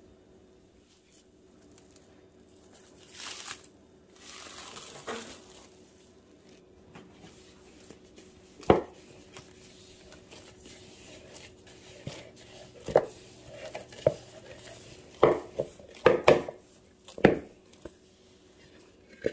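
Kitchen food-preparation sounds: two short stretches of crinkly rustling, then a string of irregular sharp knocks and clatters.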